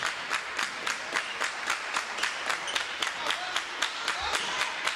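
Steady rhythmic hand clapping, about three to four claps a second, over the murmur of a crowd.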